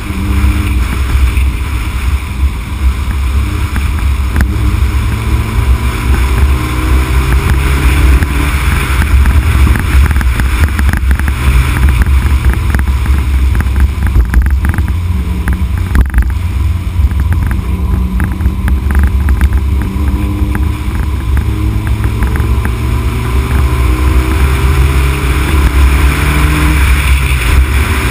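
Honda Civic Type R EK9's B16B four-cylinder VTEC engine under hard driving, its revs rising and falling several times, half buried under heavy wind rumbling over the microphone.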